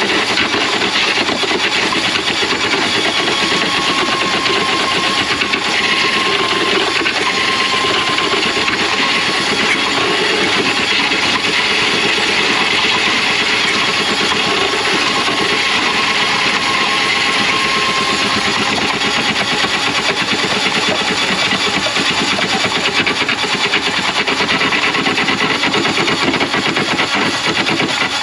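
Motorized drain-cleaning machine running steadily with a fast rattle, its cable turning in a clogged kitchen grease trap line to clear the blockage.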